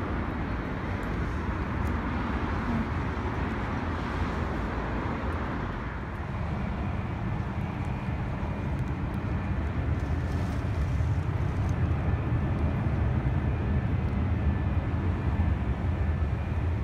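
Wind and rain outdoors: a steady rush, with a deep wind rumble on the microphone that grows stronger about six seconds in.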